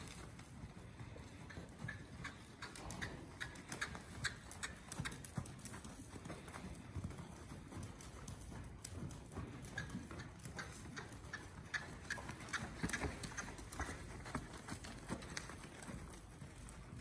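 A horse's hooves on the soft sand footing of an indoor arena at a walk, a steady run of dull thuds and scuffs, mixed with a person's footsteps alongside.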